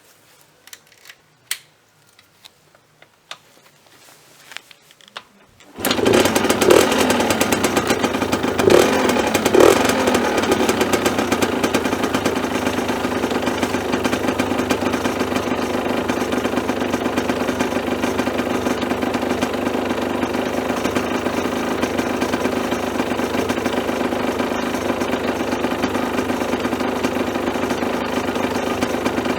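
A 2010 Aprilia SX 50's 50 cc two-stroke single-cylinder engine catching about six seconds in after a few clicks and knocks, revved briefly a few times, then running steadily at idle.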